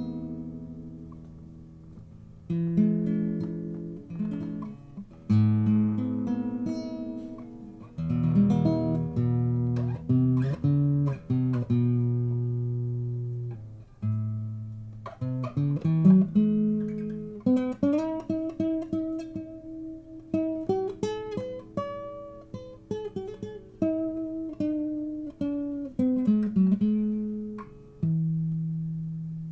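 Background music on acoustic guitar: plucked notes and chords that ring and fade, one after another.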